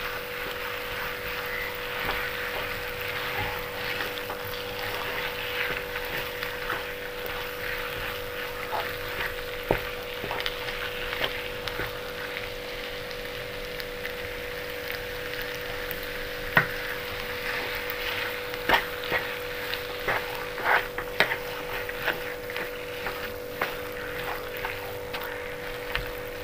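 Wooden spatula stirring sago pearls and sugar in ghee in a non-stick pan: a soft frying sizzle with scattered clicks and scrapes of the spatula against the pan, which come more often in the second half. A steady hum runs underneath.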